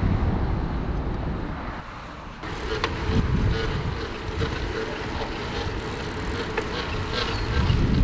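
Wind rushing over the microphone and rumble from a bicycle rolling along a paved path, with a steady buzzing hum from about two and a half seconds in.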